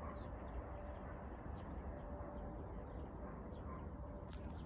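Short, faint bird chirps over a steady low rumble and a faint steady hum.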